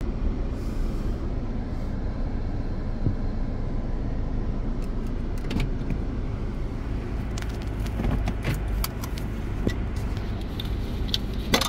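Car engine idling, heard from inside the cabin as a steady low rumble. Scattered light clicks and rustles start about five seconds in.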